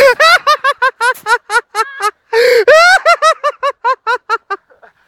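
A person laughing hard in rapid, high-pitched 'ha-ha' bursts: two long loud bouts with a short catch of breath about two seconds in, trailing off near the end.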